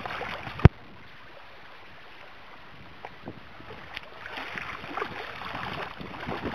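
Wind and water noise aboard a boat, broken by one sharp click a little under a second in. After the click the sound drops to an even hiss for about two seconds, then grows busier again.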